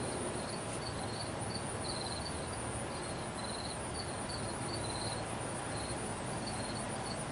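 Crickets chirping outdoors in short trills, two or three a second at irregular intervals, over a steady high-pitched insect drone.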